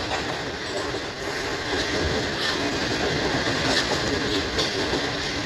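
Passenger train coaches running on the rails, heard from a coach window: a steady rumble of wheels on track, with a few faint clicks over the rail joints.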